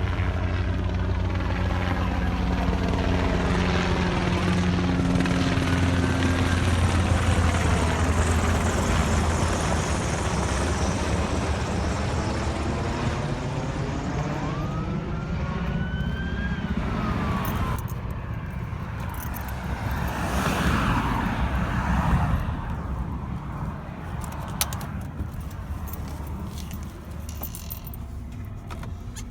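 Engine drone of a passing vehicle, starting suddenly, loudest a few seconds in and slowly fading over about twenty seconds.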